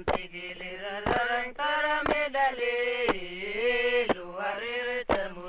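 Soundtrack music: a chanted vocal line held and sliding between notes, over sharp percussive hits about once a second.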